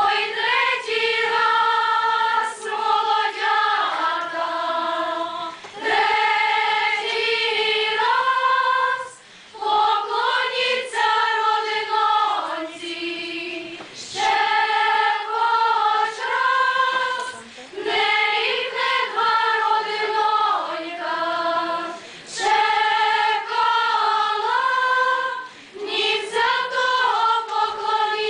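Choir singing a Ukrainian folk wedding song without accompaniment, in sung phrases of a few seconds with short breaks between them.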